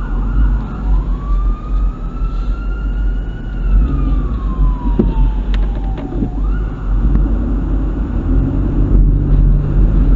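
Ambulance siren on a slow wail: one long rise and fall, then the start of another climb that fades about two-thirds of the way in. Under it is a steady low rumble of engine and road noise from the following car.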